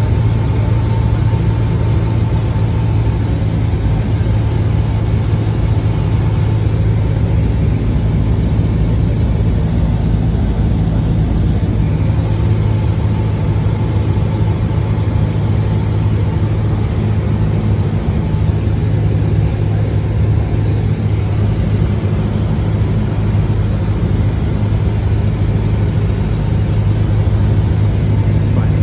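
Cessna 172's engine and propeller droning steadily as heard inside the cabin, a deep, even hum.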